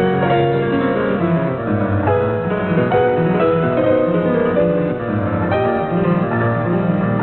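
Solo piano playing a fast classical piece, with many quickly changing notes sounding together.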